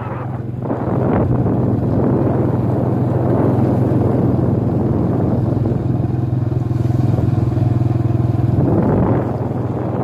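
A vehicle's small engine running steadily while driving, over a continuous rushing noise.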